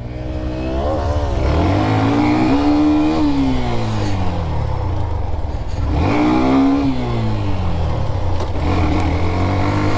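Hero Xtreme 125R's single-cylinder engine pulling on a rough dirt track. Its pitch rises for about three seconds and falls away, then rises again about six seconds in before easing to a steady note.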